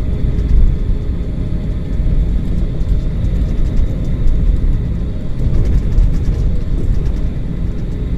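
Steady, loud engine and airframe rumble heard from inside a passenger jet's cabin during take-off, with a few faint rattles.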